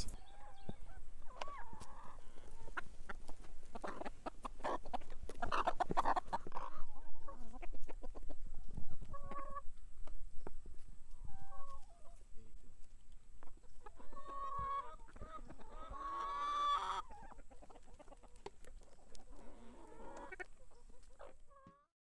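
A flock of hens clucking in short calls as they crowd round and peck at food on the ground.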